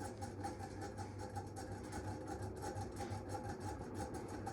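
Mistralaire MCFA48 industrial ceiling fan running on high and still getting up to speed: a steady motor hum with a rhythmic scraping, several times a second, from its worn-out bearings.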